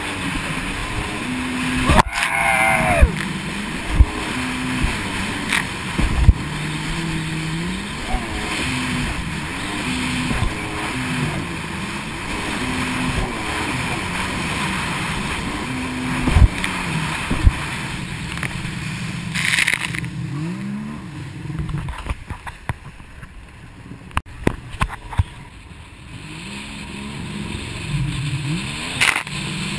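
Jet ski engine running at speed, its pitch rising and falling with the throttle, over the rush and spray of water, with sharp thumps as the hull hits the chop. The engine drops back and goes quieter about two thirds of the way through, then picks up again near the end.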